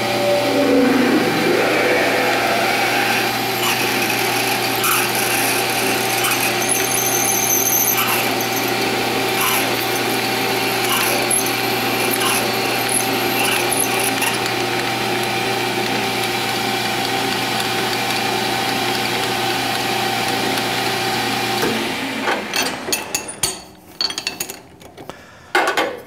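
Metal lathe running as a 3/8-inch twist drill cuts through the spinning workpiece: a steady motor hum with a hiss and scrape of cutting. About 22 seconds in the lathe stops, followed by a few clinks and rattles of tools being handled.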